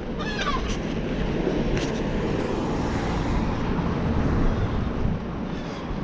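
Street traffic: a car driving along the road, a steady low rumble that swells a little about four seconds in. There is a short high whistle that slides downward near the start.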